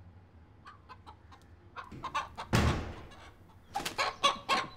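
Pet rooster clucking: scattered short clucks that crowd into a quick run near the end, with one louder burst about two and a half seconds in.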